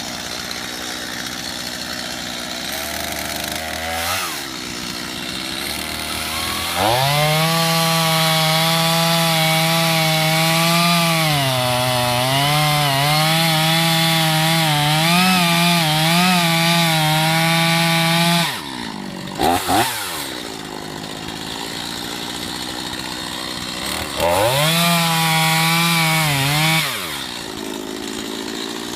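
Stihl MS 250 two-stroke chainsaw idling, then opened up to full throttle for about eleven seconds, its pitch sagging and wavering under load as the chain cuts wood. It drops back to idle, blips twice, runs at full throttle again for about three seconds, then settles back to idle.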